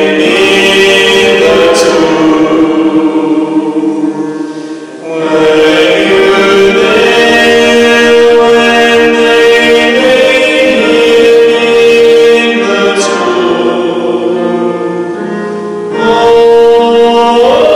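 Sacred hymn sung in slow, sustained phrases, with a short break about five seconds in and a quieter stretch near the end.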